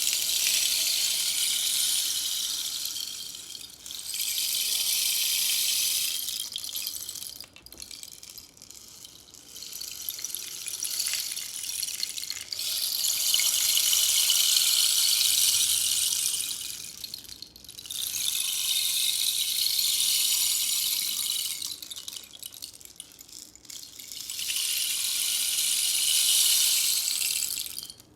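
Bamboo rain stick being tipped over and over, its pellets trickling down in a rain-like hiss; each pour swells and fades over a few seconds, about seven in all.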